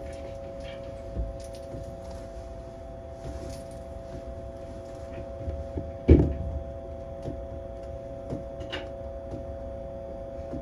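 A Tokyo Monorail car standing still, its electrical equipment giving a steady hum of several fixed tones over a low rumble. A few light clicks sound through it, and a single loud thump comes about six seconds in.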